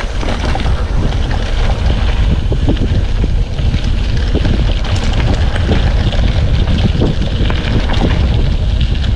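Wind buffeting the microphone of a camera on a moving mountain bike, a loud steady rumble. Through it run many small rattles and knocks from the bike going over a rough, eroded dirt track.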